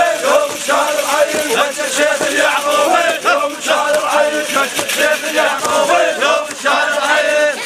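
A crowd of men chanting together in unison, an Iraqi hosa-style group chant, with many voices overlapping.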